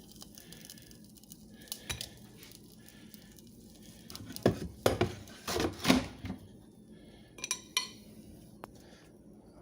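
Utensils and dishes knocking and clinking: a few scattered knocks, a louder cluster of them about halfway through, then two short ringing metal clinks.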